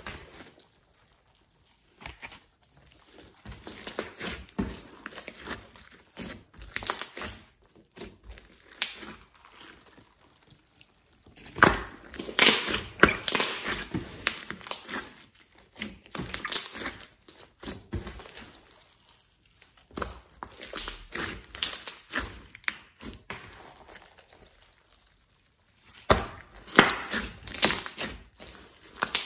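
Hands squeezing, folding and pressing a large mass of glossy slime, making irregular sticky crackles and clicks. The busiest stretches come about twelve seconds in and again near the end, with quieter pauses between.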